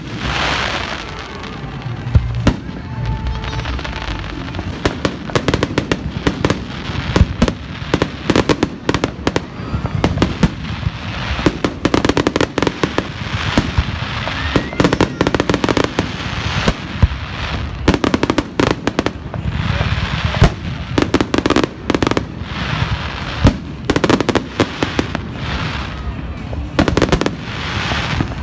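Aerial fireworks shells bursting in quick, overlapping succession: loud bangs mixed with dense crackling that continues without a break.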